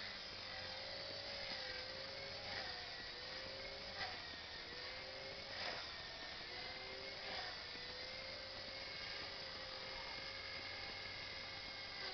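Electric Align T-Rex 450 SE RC helicopter in flight: a faint, steady motor-and-rotor whine that wavers up and down in pitch, with a few soft ticks along the way.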